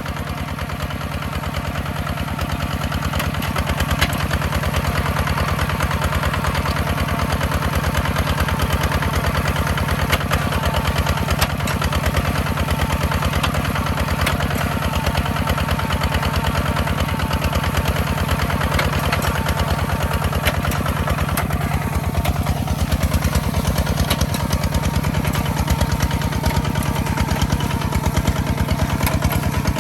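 Farm machine's engine running steadily with an even, rapid firing pulse, at a constant speed.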